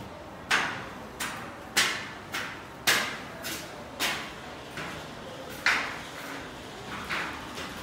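Footsteps climbing steel scaffold stairs with perforated metal treads: a clank at each step, about one and a half steps a second, each ringing briefly.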